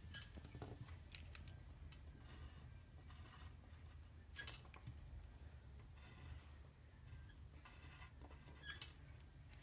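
Faint scratching of strokes being drawn on paper, in short runs, with a few light clicks, over a low steady hum.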